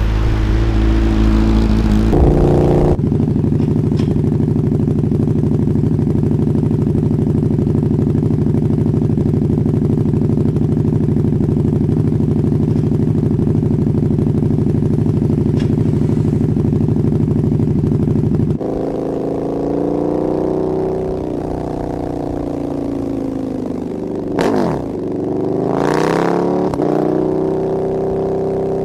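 Motorcycle engines heard close up from the rider's seat. One runs at steady revs for about fifteen seconds. After a cut, another's pitch rises and falls with the throttle and drops sharply, then climbs again, near the end.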